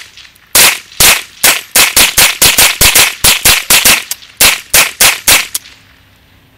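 Rapid semi-automatic fire from two Ruger 10/22 rifles shooting .22LR CCI Mini-Mag rounds: about seventeen sharp cracks at three to four a second, stopping about five and a half seconds in.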